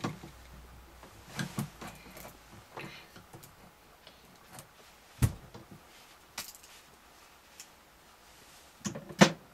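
Scattered clicks and knocks of hard plastic parts being handled as a bottle is pushed and twisted into a plastic toy robot kit's housing, with a sharp knock about five seconds in and the loudest pair of knocks near the end.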